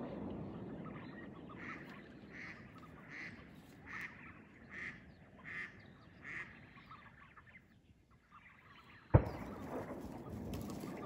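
Live decoy duck quacking: a series of about eight evenly spaced quacks, growing louder and then fading. A sharp click comes about nine seconds in, followed by a steady background hiss.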